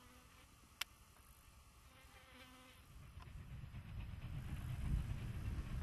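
Insects buzzing faintly, with a single sharp click about a second in; from about three seconds in, a low rumble grows steadily louder as a distant QJ steam locomotive and its freight train come within earshot.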